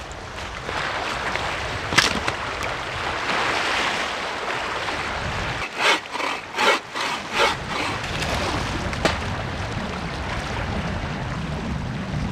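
Bow saw cutting a log, a quick run of about six strokes roughly halfway through, over a steady rushing background.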